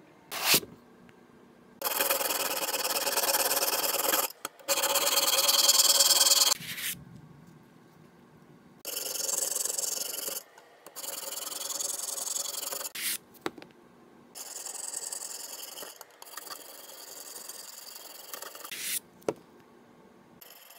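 Sharpening stones on a Wicked Edge guided sharpener stroked along a clamped knife edge, a rasping scrape in runs of one to two seconds with short pauses between, after a sharp clack about half a second in.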